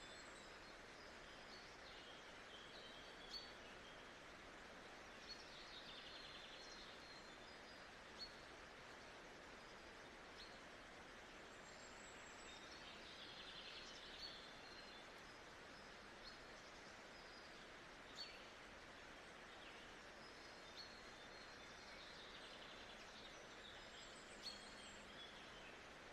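Faint nature ambience: a steady soft hiss with birds chirping on and off, and a few faint clicks.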